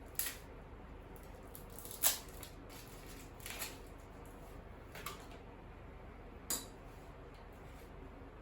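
Small metal and plastic parts clinking and clicking as an appliance is taken apart by hand: about five separate light knocks spread out, the sharpest about two seconds in.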